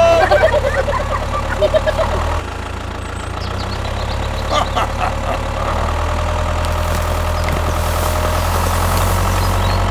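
A machine running with a steady, low, engine-like hum that shifts pitch twice, about two and a half seconds in and again near six seconds.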